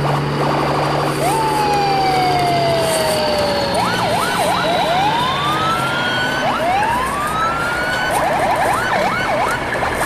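Siren-like whistling tones gliding up and down: first a long falling tone, then repeated rising sweeps, and a quick run of up-and-down warbles near the end. Underneath are a steady rushing noise and a low hum that stops about three seconds in.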